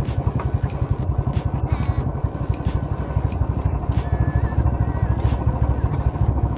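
Motorcycle ride on a rough, patched road: steady engine and road rumble with wind on the microphone, and scattered knocks from bumps.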